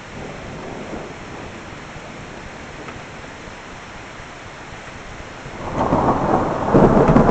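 Steady rain hissing during a thunderstorm. About three quarters of the way through, a loud rolling rumble of thunder sets in and keeps building.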